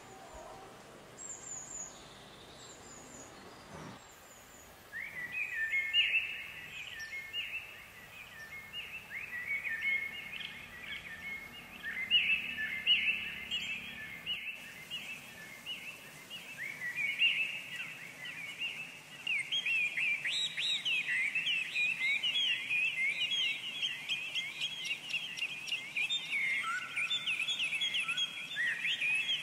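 Birds chirping: a busy chorus of short, quickly repeated sweeping chirps that starts about five seconds in and becomes dense and unbroken from about twenty seconds in. A few thin, high notes come before it.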